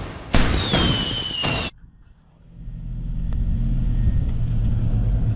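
A loud whooshing intro sound effect with a falling whistle cuts off about a second and a half in. Then a Caterpillar 950F wheel loader's diesel engine fades in and runs steadily with a low rumble.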